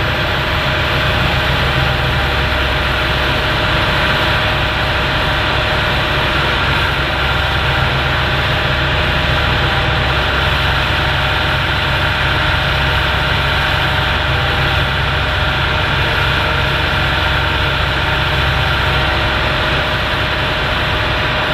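Hitachi Zaxis 225 USR excavator's diesel engine running steadily, with a constant whine over the engine noise.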